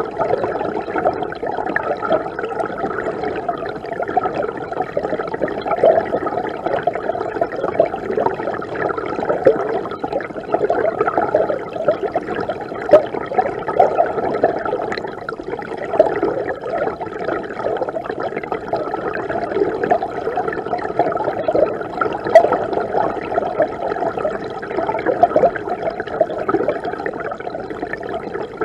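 Mountain river water rushing and gurgling steadily, heard from within the stream: a muffled, bubbling wash with little hiss, with scattered louder splashes.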